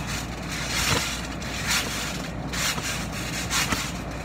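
People bouncing on a trampoline, heard through a phone resting on the mat: a rough rubbing, scraping rush that surges about once a second with each bounce, over wind noise on the microphone.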